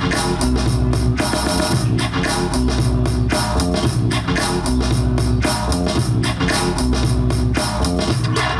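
Loud music for the dancers, with a steady drum beat and heavy bass.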